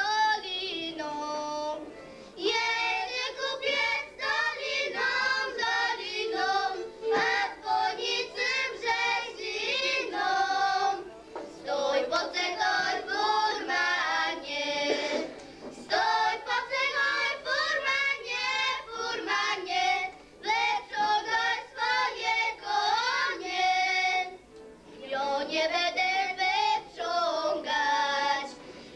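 A group of young girls singing a religious song together a cappella, in phrases broken by short breath pauses.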